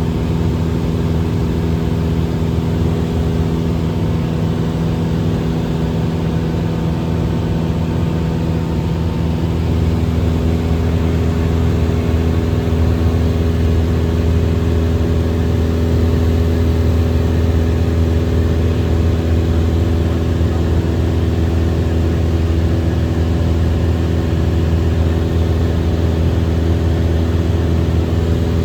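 Airplane engine droning steadily in flight, heard from inside the cabin; the drone gets slightly louder about ten seconds in.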